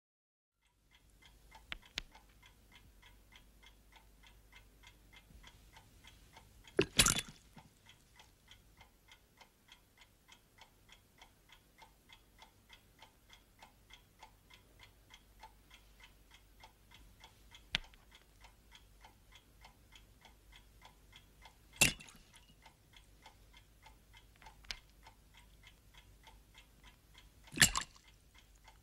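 A clock ticking faintly and steadily, about three ticks a second, starting about a second in. Three much louder sharp knocks with a short clatter cut in, one about a quarter of the way through and two near the end, with a few smaller clicks between.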